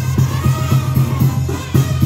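Music with drums and a heavy bass line, keeping a steady beat.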